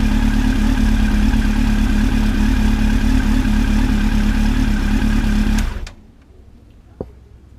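Honda CB1300's inline-four engine idling steadily, then switched off, cutting out suddenly a little over five and a half seconds in.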